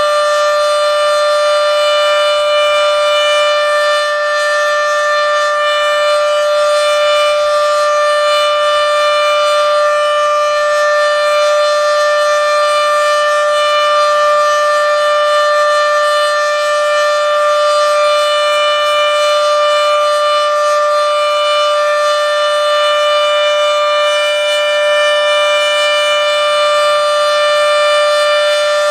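Federal Signal Model 7B outdoor warning siren sounding a steady alert signal: one loud unbroken tone with no rise or fall, held short of the siren's full pitch.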